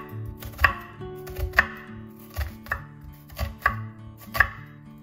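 Chef's knife slicing through a peeled onion on a wooden cutting board: about seven crisp chops at an unhurried, slightly uneven pace, each blade stroke ending with a knock on the board. Soft acoustic guitar music plays underneath.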